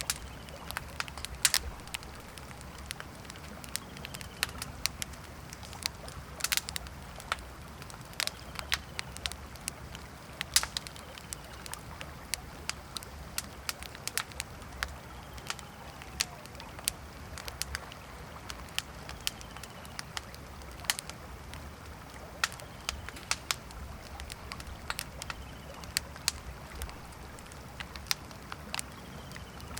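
Campfire crackling, with irregular sharp pops and snaps over a steady low background rumble. Faint short chirps sound now and then.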